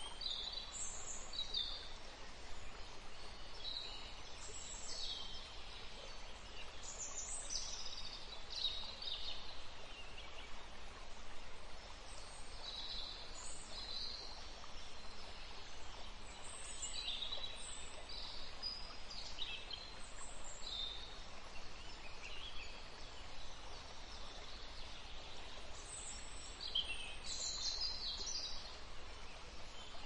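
Small caged finches, such as canaries and zebra finches, giving short, high chirps scattered through the whole stretch over a steady background hiss.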